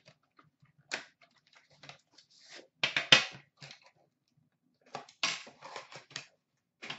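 Handling noises of a boxed hockey card product: short clicks, knocks and scrapes as the box is handled and set down in a plastic bin, loudest about three seconds in, with another run of knocks around five to six seconds.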